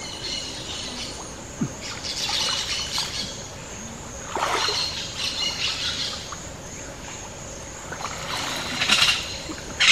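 Creek water splashing and sloshing as a man wades and works with his arms in it, in a few louder bursts, with birds calling in the background.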